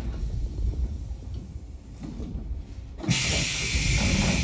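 Low rumble of a JNR 113 series electric train, then about three seconds in a sudden, steady hiss of air begins and runs on.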